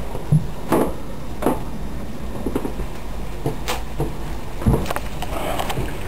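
Irregular short clicks and knocks, about eight of them a fraction of a second to a second apart, over a steady low hum.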